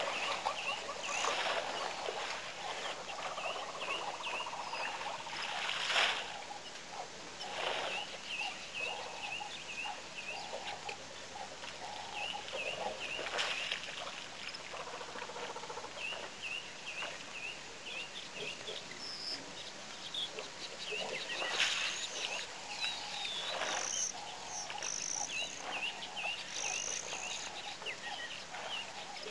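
Waterhole ambience of many birds calling, short chirps repeated in quick series, with some higher short whistles in the second half. A few brief rushes of noise stand out, among them one about six seconds in and one about twenty-two seconds in.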